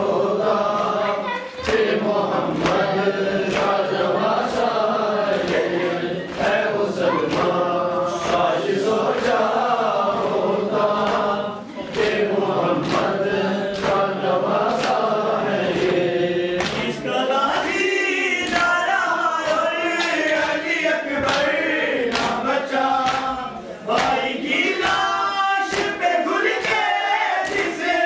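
A group of men chanting a lament in unison, with the regular slaps of hands beating on chests (matam) keeping time. The singing climbs higher and stronger about halfway through.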